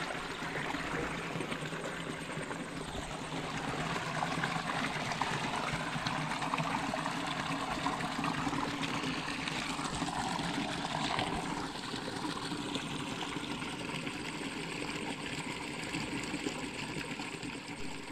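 A rocky stream rushing and splashing over stones, a steady stream of water noise.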